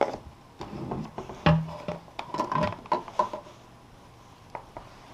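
Irregular knocks, clicks and clatter from handling the plastic humidifier and its parts, most of them in the first three seconds and fewer toward the end.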